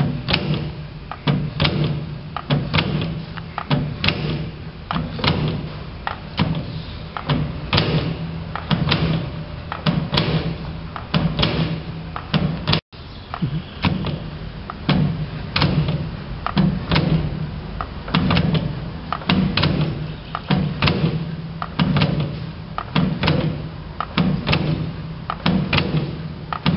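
Elmass push broach cutting a keyway in a drill press, worked by hand: a steady run of repeated knocks and clunks, roughly one stroke a second, as the quill is pulled down and released over and over.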